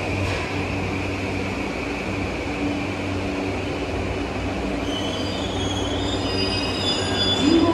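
Electric subway train braking to a stop at an underground platform. A steady high whine and low rumble from its electric drive die away, then high squealing tones from the wheels and brakes come in near the end as it halts.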